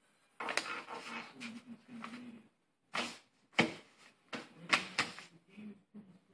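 Paper rustling and sharp taps on a tabletop as a toddler's hand slaps and shuffles sheets of paper while she holds a pen: rustling in the first half, then a few separate taps, two close together near the end.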